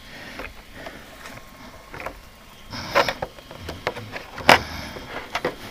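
Hands working at the battery and wiring on the underside of a Losi Tenacity T RC truck: scattered small clicks and knocks from handling the chassis, the sharpest about three-quarters of the way through.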